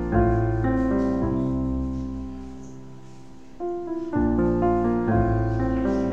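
Background piano music: a melody of single notes over low held bass notes, thinning out and fading a little before three seconds in, then picking up again with fuller chords about four seconds in.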